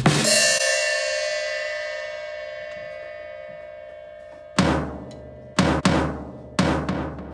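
Drum kit: a crash on the cymbal rings on and slowly fades over about four seconds. Then the drums start again with a few hard hits, roughly one a second.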